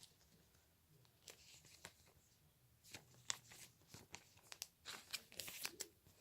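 Pokémon trading cards and their crinkly plastic and foil packaging being handled: faint scattered crinkles and sharp rustling clicks, sparse at first and busier in the second half.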